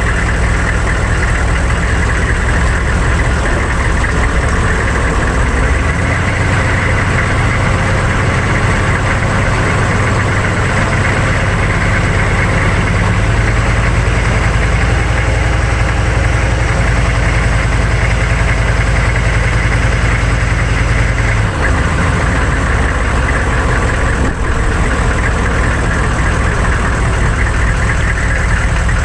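1999 GMC 3500's 6.5 turbo diesel and drivetrain running as the pickup drives, heard from under the truck together with tyre and road noise. The engine note rises about six seconds in and changes abruptly about three-quarters of the way through.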